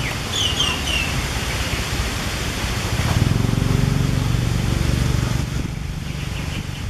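Outdoor wind rumble on the microphone, with a motor engine's hum swelling from about three seconds in and fading near the end. A few short high-pitched calls sound in the first second.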